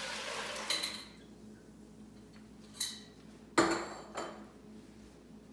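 Broth pouring into a metal soup pot, finishing about a second in. Then a few sharp clinks and one loud ringing clank of the pot and kitchen utensils on the stovetop, with a smaller knock just after it.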